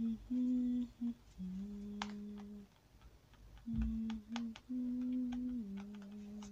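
A man humming a slow tune in long held notes that step up and down in pitch, with short breaks between phrases. Light clicks and a thump about four seconds in.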